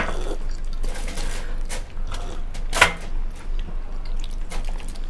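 Wet chewing, smacking and slurping of people eating steamed momo dumplings, with scattered clicks and crinkles of the aluminium foil under them. There is one sharper, louder click about three seconds in.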